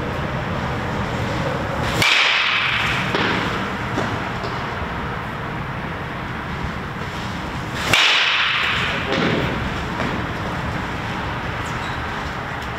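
Baseball bat hitting pitched balls: two sharp cracks about six seconds apart, each with a short bright ring, over steady background noise.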